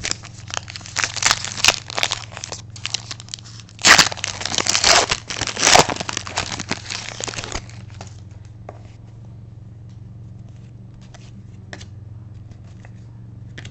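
Trading card pack wrapper being torn open and crinkled: a run of crackling and tearing for about eight seconds, loudest in the middle, then only faint scattered clicks.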